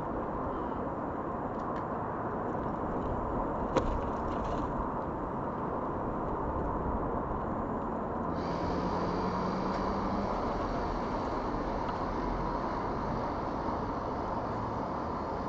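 Steady low outdoor rumble of distant traffic, with one sharp click about four seconds in and a faint hum joining briefly after about eight seconds.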